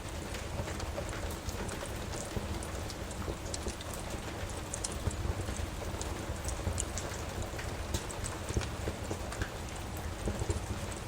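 Steady rain hiss with a wood fire crackling, scattered sharp pops over the even wash of rain.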